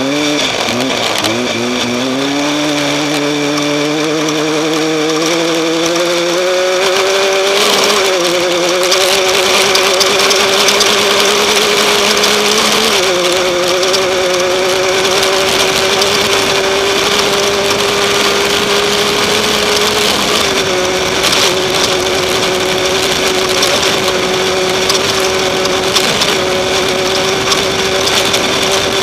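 Off-road race vehicle's engine running hard. Its pitch climbs steadily for the first several seconds, then holds fairly level with three brief dips, over a constant loud rush of wind and road noise with scattered knocks.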